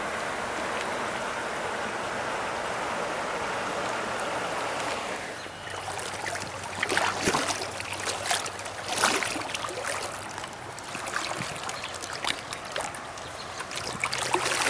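River water rushing over rocks in a shallow riffle, a steady even rush. About five seconds in it gives way to quieter flowing water broken by irregular splashes and clicks.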